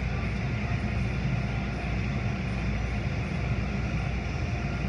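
Automatic tunnel car wash running: a large rotating brush spinning against a car while water sprays over it, a steady rushing noise over a deep mechanical rumble.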